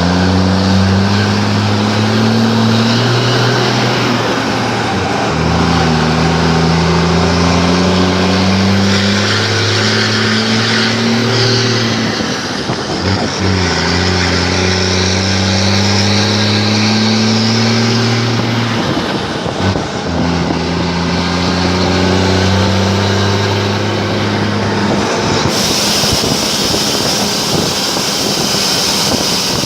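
Truck's straight-piped exhaust, with no muffler, running loud as the truck pulls through the gears. The engine note climbs slowly and drops at each shift, three times. A sudden hiss joins near the end.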